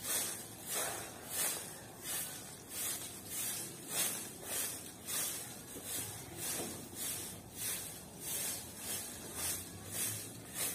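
Broom sweeping a bare dirt yard: a steady rhythm of scraping swishes, about one and a half strokes a second.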